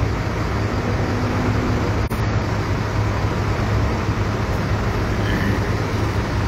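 Steady traffic noise in a jam on a wet road: a low engine hum under an even hiss of water and tyres, broken by a brief dropout about two seconds in.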